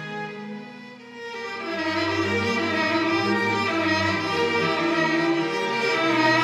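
String section with violins and cello playing slow, held notes in a live pop arrangement. The sound thins out about a second in, then swells back up fuller and louder.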